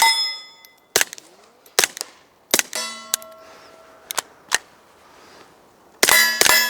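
Suppressed .22 GSG 1911 pistol firing Remington subsonic rounds, several sharp, quiet cracks at uneven spacing, many of them followed by the ringing clang of steel targets being hit.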